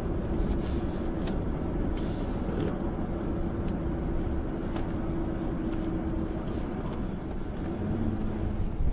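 BMW 750Li's twin-turbo V8 running at a steady cruise, mixed with tyre and wind noise. A steady engine drone holds until about six and a half seconds in, then fades.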